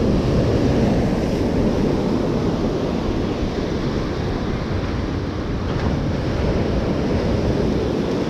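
Ocean surf breaking and washing over the boulders of a rock jetty in a steady rush, with wind buffeting the microphone.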